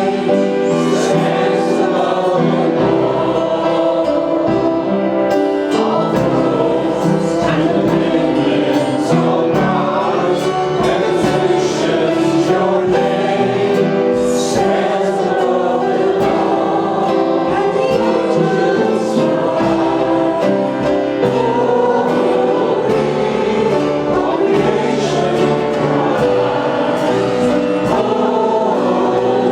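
Worship song sung by a group of singers with instrumental accompaniment, continuous and even in level.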